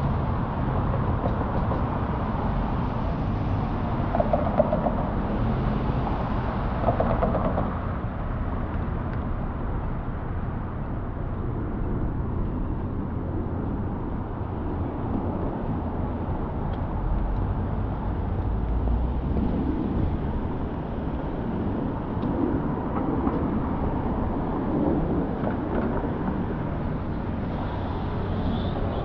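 City street traffic ambience: a steady rumble of passing cars and buses, with two short higher-pitched sounds about four and seven seconds in.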